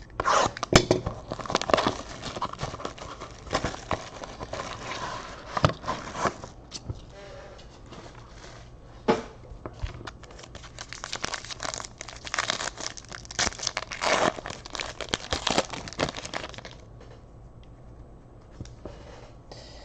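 Plastic and foil wrapping crinkling and tearing in irregular handfuls, with sharp clicks, as a pack of trading cards is torn open and unwrapped; it dies down near the end.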